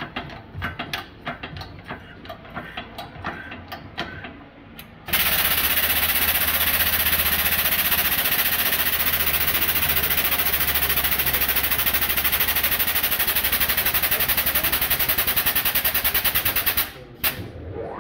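Scattered metal clinks and knocks as a stainless steel blade is set in a press die, then the air-driven hydraulic pump of a Metalmaster HPM-30 workshop press starts about five seconds in and runs loudly with a fast, even rattling pulse while the press folds the blade. It cuts off abruptly about a second before the end, followed by a single clunk.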